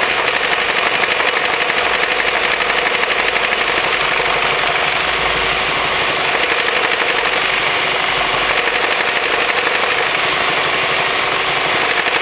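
Ford Focus 2.0L Duratec four-cylinder idling with a fast, steady knocking from the clutch end, which eases for a few seconds partway through. The owners take the knock for a worn-out spring-loaded (dual-mass) flywheel, and it quietens with the clutch pedal.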